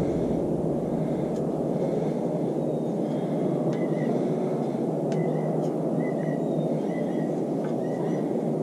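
Steady, even rumbling background noise, like distant traffic, with faint short high chirps several times in the second half and a few faint clicks.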